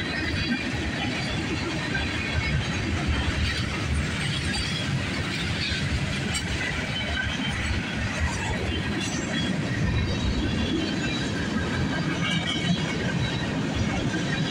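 Freight cars of a mixed freight train rolling past close by: a steady rumble of steel wheels on rail with wheel clatter and scattered short high-pitched squeals.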